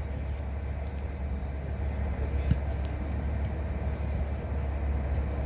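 Steady outdoor background noise dominated by an even low rumble, with a faint knock about two and a half seconds in.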